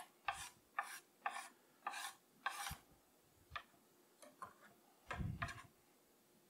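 Kitchen knife scraping across a bamboo cutting board in five quick strokes, about two a second, then a few light taps and a dull knock near the end.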